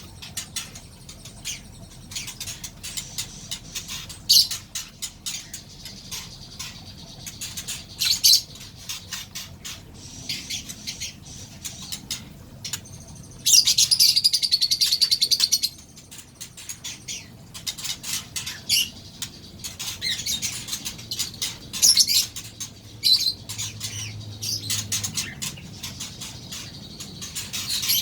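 Four-month-old juvenile white-rumped shama chirping and calling in short scattered bursts, with one louder run of rapid notes lasting about two seconds around the middle.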